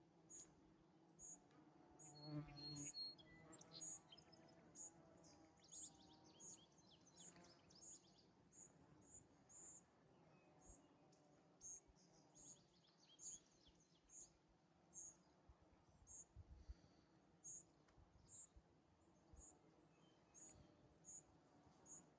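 Faint wild-meadow calls: a short high chirp repeating at a steady pace of a little over one a second, with brief trilled calls about six and twelve seconds in. A short low buzz, like a bee flying past, about two seconds in.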